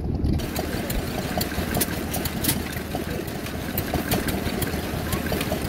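Vintage single-cylinder stationary engine running steadily, with sharp ticks several times a second over the low running noise.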